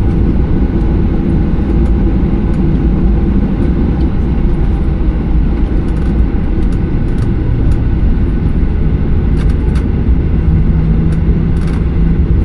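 Steady cabin noise of a Boeing 737-800 heard from inside the passenger cabin: a loud, even low rumble of its CFM56 jet engines and airflow, with a faint steady hum.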